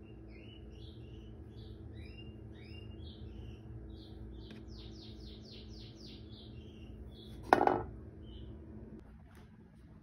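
Birds chirping: many short high chirps, then a quick run of falling notes. About seven and a half seconds in, one sudden short loud noise stands out above them.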